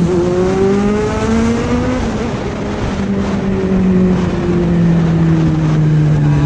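Kawasaki Z900's inline-four engine under way: its pitch climbs as it pulls hard through a gear for about two seconds, then slowly falls as the throttle eases off.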